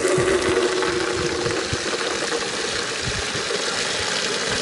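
Two outdoor taps running full, their streams splashing steadily into plastic buckets, one fed straight from the mains pipe and the other from the outlet of a stainless-steel whole-house water filter. A faint steady hum sits underneath.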